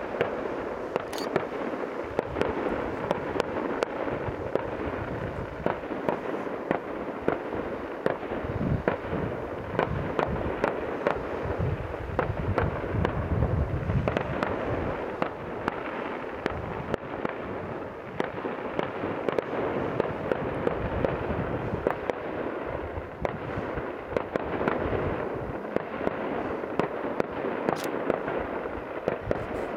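Professional fireworks display: a continuous rapid stream of pops and crackles, with heavier deep bangs in the middle.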